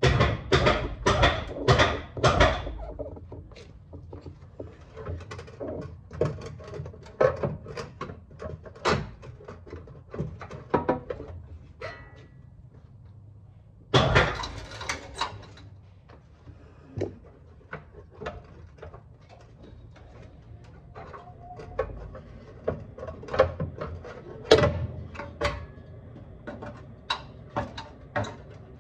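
Irregular metal clunks, knocks and scrapes of hands and tools working the oil pan loose from the underside of a Subaru engine and lowering it out, with a burst of loud knocks at the start, another about halfway, and more near the end.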